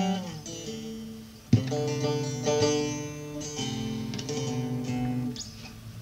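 Solo long-necked Turkish saz (bağlama) playing an unmeasured improvisation: plucked notes ringing and bending slightly down, a strongly struck chord about a second and a half in, then a run of sustained melody notes that fades out near the end.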